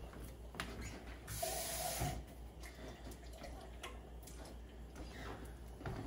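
Kitchen faucet running briefly into an empty tomato-sauce can, a short rush of water about a second and a half in, with faint clinks of the can being handled.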